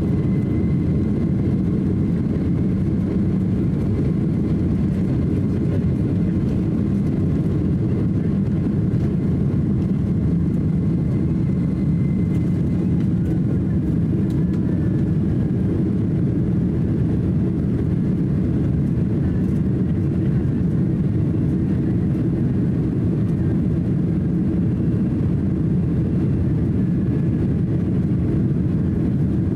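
Cabin noise of a Boeing 767-300 at takeoff: its jet engines run at takeoff thrust through the runway roll, liftoff and initial climb, heard inside as a loud, steady, low rumble. A faint high whine sits above it for the first dozen seconds or so, then fades.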